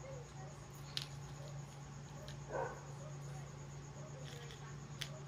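Quiet handling of nylon fishing line and terminal tackle: a few faint clicks and a soft rustle over a steady low hum.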